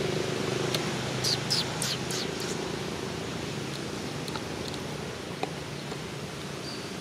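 A quick run of about five short, high-pitched squeaks, each sliding downward, from a baby macaque about a second in, over a steady low outdoor hum.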